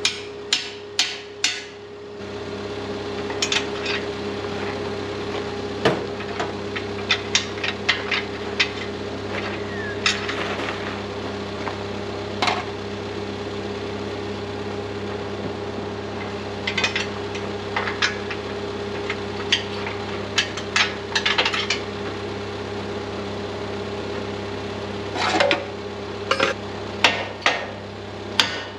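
Hammer blows on the steel frame of a sprayer boom, struck in quick runs of several blows with pauses between. A steady machine hum runs underneath.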